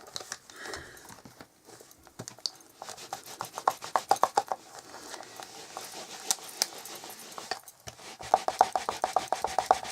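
Rapid scraping strokes on cardstock from paper-craft work, about eight a second, in one run around three seconds in and another near the end.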